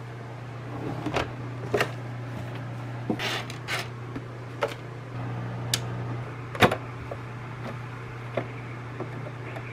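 Light clicks and knocks of objects being handled and moved about on a desk and at a sewing machine, at irregular times, the sharpest about six and a half seconds in, over a steady low hum.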